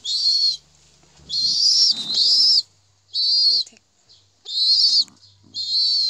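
Pigeon squabs peeping: a run of high, wavering squeaky calls, each about half a second long, about six in a row with short gaps between.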